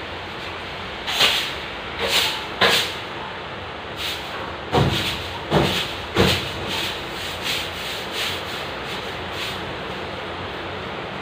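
A long-handled broom brushed against the ceiling and upper walls: about ten uneven scraping strokes of the bristles, strongest in the first six seconds, over a steady background hiss.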